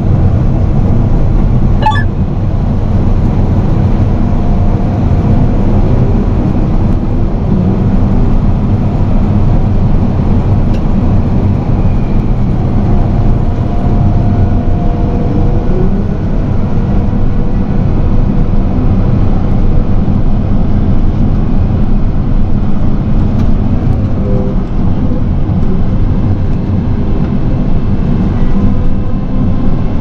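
Heavy farm machinery running steadily: a continuous engine drone with a dense low rumble that holds level throughout.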